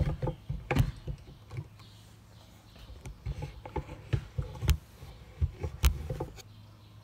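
Irregular clicks and knocks of hand work on the headlight housing, fitting its 10 mm bolts, over a steady low hum.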